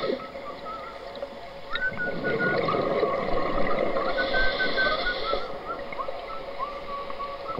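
Underwater sound from a diving camera: a scuba regulator's inhalation hiss about four seconds in, over bubbling noise and wavering whistle-like tones.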